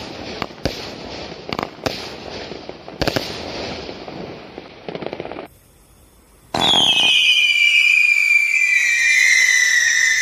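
A 20-shot consumer fireworks cake firing: sharp bangs at irregular intervals with crackling between them for about five seconds. After about a second's pause comes a loud steady whistle that slowly falls in pitch.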